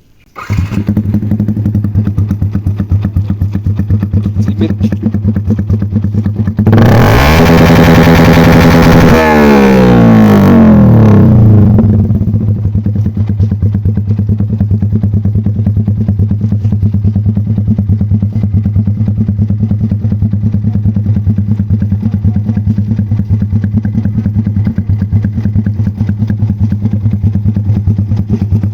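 Motorcycle with an aftermarket racing exhaust: the engine comes in about half a second in and idles, is revved hard to the limit for about five seconds around a quarter of the way in, then drops back to a steady idle.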